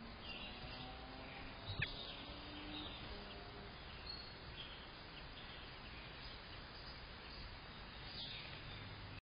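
Faint bird chirps over a steady outdoor background hiss, with one sharp click about two seconds in.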